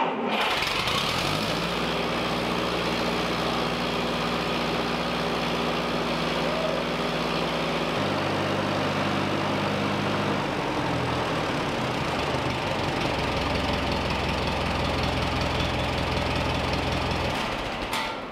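Allis-Chalmers D17 tractor's four-cylinder gasoline engine catching and running steadily, its speed shifting a few times, then shut off near the end. It fires now that the new ignition points, whose contacts were coated, have been polished to make contact, curing the no-spark fault.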